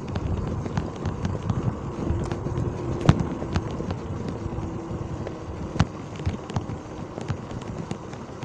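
Wind rumbling on the microphone of a moving motorcycle, with irregular clicking and knocking rattles. The loudest knock comes about three seconds in, and a faint steady hum runs underneath.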